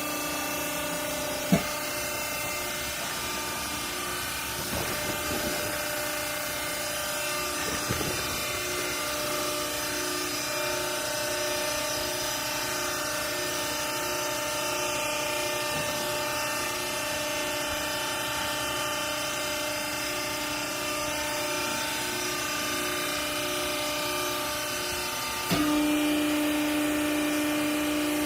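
Hydraulic baling press running: a steady motor and pump hum with several held tones, a couple of short knocks in the first eight seconds, and a sudden louder, deeper hum that starts near the end.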